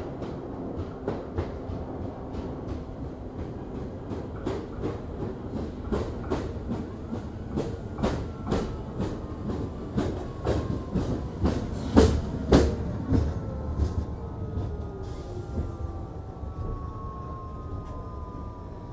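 R46 subway train pulling into an elevated station: its wheels clack over rail joints, loudest about twelve seconds in. A falling whine follows as the train slows to a stop, with a hiss near the end.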